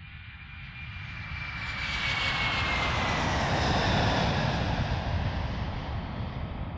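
Jet-aircraft fly-by sound effect: a rushing noise that builds for about four seconds and then fades, with a whistle that slowly falls in pitch.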